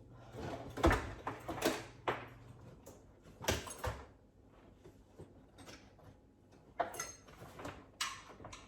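Kitchen cabinet being opened and rummaged through: a string of knocks and clatters of doors and items being moved, most of them in the first four seconds.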